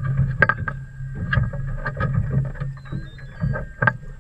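Water slapping and knocking irregularly against a small boat's hull, over a steady low hum.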